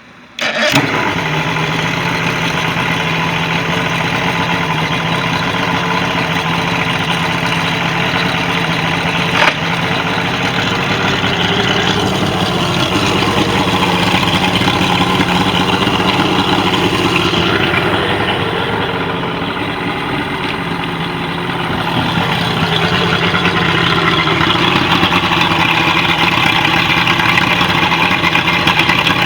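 Mercury 150 hp outboard motor starting about half a second in and then running steadily, with a short sharp click about nine seconds in and a slight drop in level a little past the middle.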